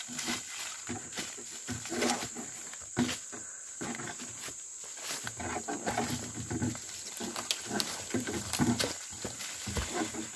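A man grunting and breathing hard in short irregular bursts as he climbs a steep slope under the weight of a large fish, his boots crunching on dry leaves. A steady high insect drone runs underneath.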